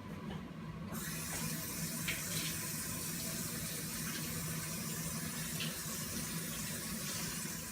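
Kitchen tap running water into a sink to rinse cut bok choy leaves. The stream turns on about a second in and runs steadily.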